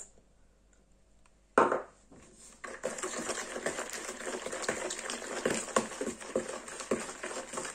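A utensil beating eggs into a butter-and-sugar mixture in a plastic mixing bowl: a short knock about a second and a half in, then quick, continuous clicking and scraping against the bowl.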